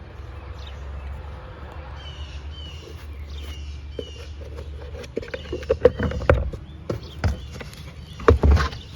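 A few high chirps, then a run of knocks and clunks, loudest about six seconds in and near the end, over a low steady rumble.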